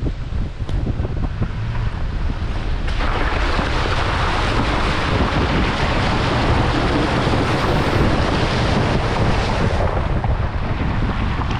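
Toyota Tacoma pickup driving through a shallow creek crossing: its tyres splash and hiss through the water from about three seconds in until near the end, over a steady low rumble from the truck and wind on the microphone.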